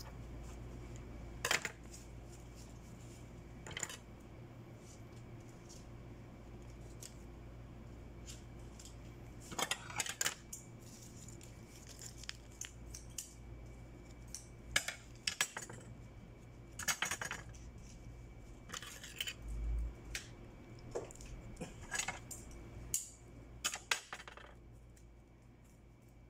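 Rolls of pink ribbon being handled: scattered light clicks, clatter and rustles in short bunches a few seconds apart, over a faint steady hum.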